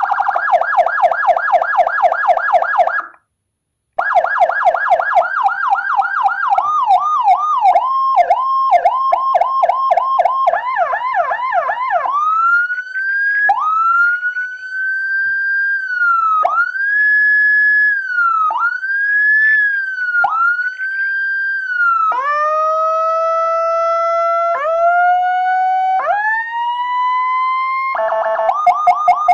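Whelen HHS siren module through a 200 W amplifier, cycling through its electronic tones. A fast warble cuts out for about a second, then comes back as quick yelps that slow down. These give way to slow rising-and-falling wail glides and then a run of upward sweeps, and a fast pulsing tone returns near the end.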